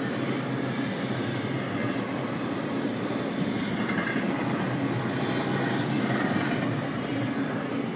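Double-stack intermodal freight train's well cars rolling past: a steady, unbroken noise of steel wheels on rail.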